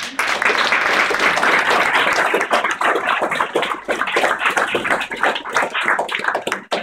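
A crowd applauding: dense, loud clapping from many hands.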